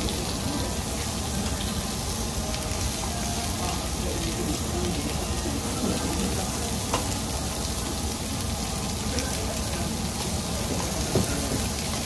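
Meat sizzling on a tabletop Korean barbecue grill, a steady hiss, with two brief sharp clicks, one about seven seconds in and one near the end.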